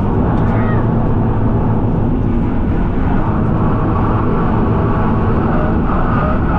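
Car engine pulling hard at speed in fourth gear, a loud steady drone whose pitch shifts slightly a few times.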